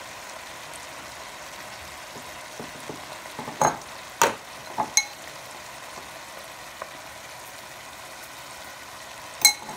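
Ground meat with peas and carrots sizzling steadily in a stainless steel pot. A few sharp knocks with a short metallic ring come through it, three of them between about three and a half and five seconds in and a louder one near the end.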